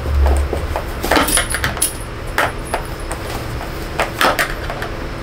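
Irregular metallic clicks and clinks, with a low thump at the start: a screwdriver and loose screws being handled inside a suitcase while the screws holding a worn wheel are taken out.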